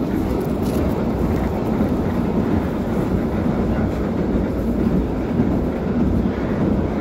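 Steady interior running noise of a CAF FGV 3700 electric train in motion: a low rumble of wheels on rail and running gear heard from inside the passenger car.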